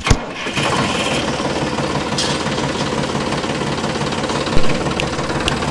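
A small toy vehicle's motor running with a fast, even rattle, with one sharp click about four and a half seconds in.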